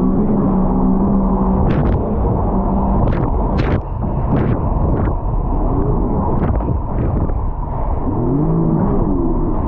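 A 300 HP jet ski's engine running under throttle, over a loud rush of noise, with several short sharp slaps in the middle. Its pitch holds steady at first, then rises and falls repeatedly near the end as the throttle is worked.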